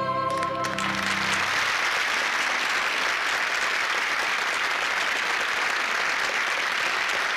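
The last held chord of a folk song, sung voices with acoustic guitars, dies away about a second in. It gives way to an audience applauding steadily.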